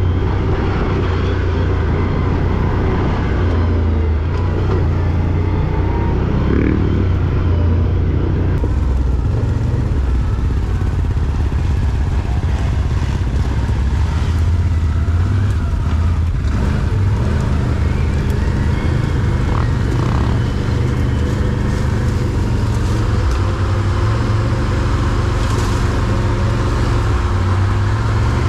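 Quad bike (ATV) engine running as it is ridden, its note shifting up and down with the throttle.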